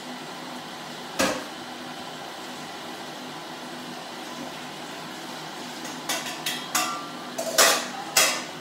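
Kitchen clatter of pans and utensils: one sharp knock about a second in, then a run of knocks and clinks near the end, over a steady hiss from the stove where a stir fry is cooking in a wok.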